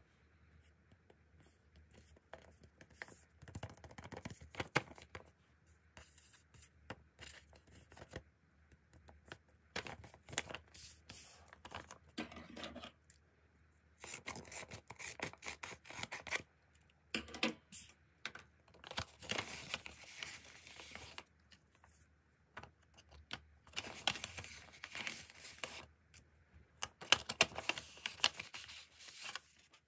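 Scissors snipping through a handmade glossy paper blind bag, among bursts of paper rustling and crinkling as the bag is handled and paper cards are pulled out of it.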